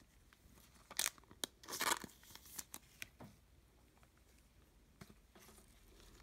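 Trading cards and a clear plastic card sleeve being handled: crinkling and rustling, loudest about one and two seconds in, then fainter.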